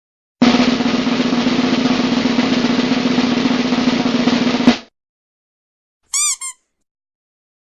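Snare drum roll sound effect lasting about four seconds and ending on a single sharp hit. About a second and a half later come two short chirps that bend up and down in pitch.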